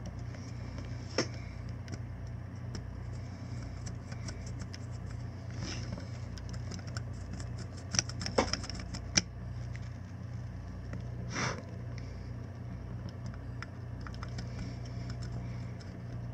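A small pointed tool scraping and clicking in a circuit board's solder-filled through-hole as it is reamed out, with light scratchy ticks and a few sharper clicks, a cluster of them about eight seconds in. A steady low hum runs underneath.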